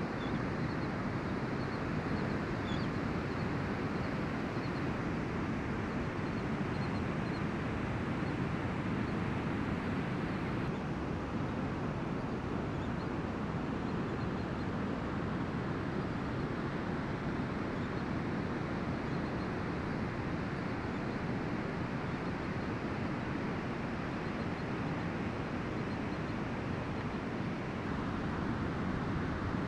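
Ocean surf breaking on the beach, a steady wash of noise with no let-up.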